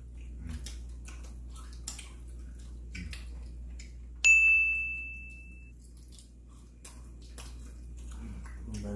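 A single bright ding about four seconds in: something hard and resonant is struck once and rings clearly for about a second and a half. Around it are faint clicks and taps of eating at a table, over a steady low hum.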